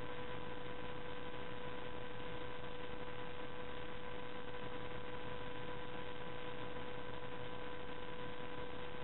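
Steady electrical hum and hiss of the recording: a constant high-pitched whine over even background hiss, unchanging throughout.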